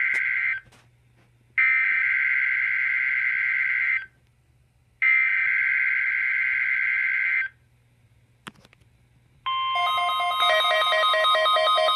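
NOAA Weather Radio EAS/SAME header: screeching, warbling two-tone digital data bursts. The end of one burst is followed by two more, each about two and a half seconds long with a short gap between them. About 9.5 s in, the steady weather radio warning alarm tone starts, and a second later a rapidly alternating beeping tone pattern joins it.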